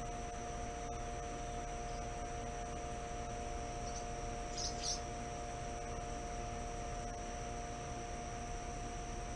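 Steady hum from a running outdoor air-conditioning condenser, with a couple of steady tones over it and a brief high chirp about halfway through.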